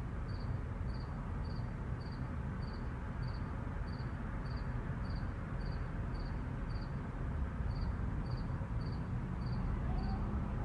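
A cricket chirping steadily in a high pitch, about three chirps a second, over a low steady rumble of distant traffic.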